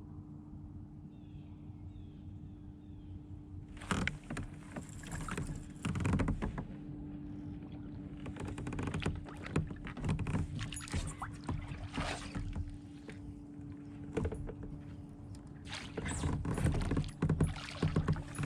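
Irregular water and handling noises at a fishing kayak, splashes and knocks, starting about four seconds in over a steady low hum.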